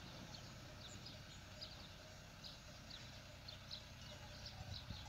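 Faint sound of fighting-breed cattle eating hay at a fence feeder: munching and pulling at the hay. Short, high, crackling ticks come at irregular moments over a low background.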